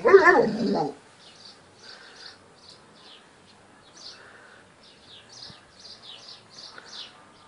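Small birds chirping in short, scattered high chirps throughout. In the first second, a loud wavering cry lasting about a second stands out over them.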